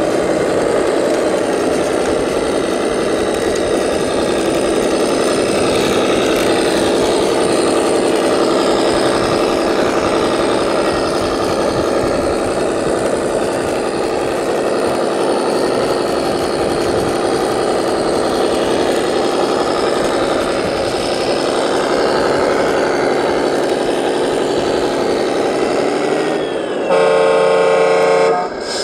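Radio-controlled MAN 6x6 truck towing a loaded lowboy trailer, its engine and drivetrain running steadily under load. Near the end a truck air horn sounds once for about two seconds.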